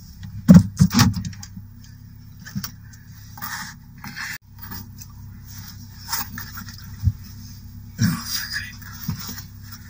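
Knocks, scrapes and rustling from someone shifting in a car seat and tugging at a seat cover, over a steady low hum. The loudest knocks come about half a second and a second in, with another about 8 seconds in.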